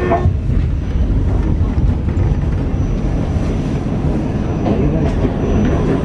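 R46 subway car rolling along a station platform: a steady, loud low rumble of wheels on rail and running gear, with a faint thin high tone above it.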